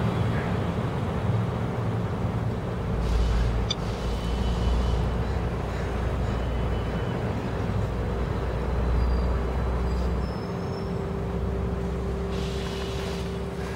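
Road traffic noise: a motor vehicle's low rumble, heaviest from about three to ten seconds in, over a steady hum.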